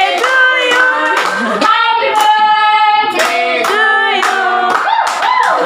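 A group of people singing together while clapping their hands along in a steady rhythm.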